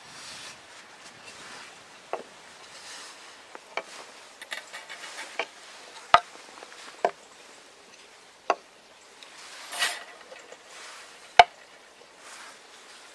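Carved dry ash-wood frame saw parts handled and set down on a wooden bench: about six sharp wooden knocks several seconds apart, with soft rustling between and a short scrape about ten seconds in.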